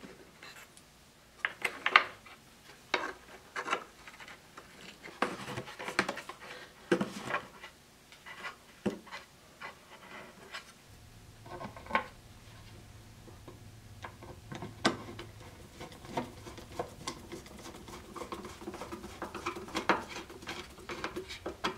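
Hand reassembly of an oak table: a leg fitted onto its threaded corner bolt and the hardware tightened by hand and with a screwdriver, giving scattered light knocks, clicks and small metal clinks with some rubbing of wood.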